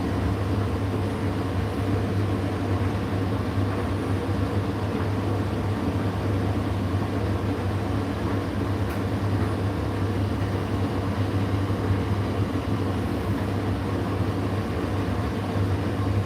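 Indesit IDC8T3 condenser tumble dryer running mid-cycle: a steady low motor hum under the even whoosh of the fan and turning drum.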